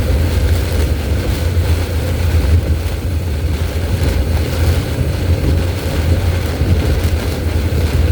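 Steady low rumble of a car driving through heavy rain and high wind, heard from inside the cabin: road, tyre and wind noise.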